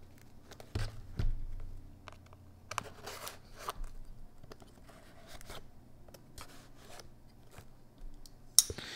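Oz Machine Company Roosevelt folding knife slitting the packing tape on a cardboard mailing box: a few short scraping, crunching cuts with soft knocks from the box being handled, and a sharper click near the end.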